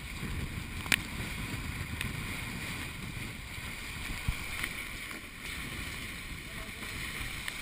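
Dragonfly 800 trimaran under sail: a steady rush of water and wind noise, with a sharp tap about a second in and a couple of fainter taps later.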